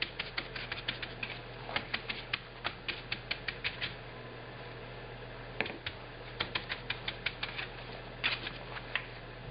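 Stiff paintbrush dabbing paint onto wet fabric in a metal baking tray: quick taps at about five a second, in two runs with a pause of about a second and a half in the middle.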